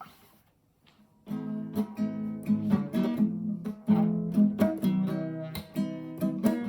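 Acoustic guitar strumming chords in a steady rhythm, starting about a second in after a brief quiet.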